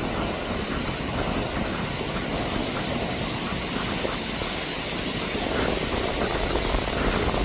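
Strong gusty wind rushing and buffeting the microphone in a steady, noisy rumble.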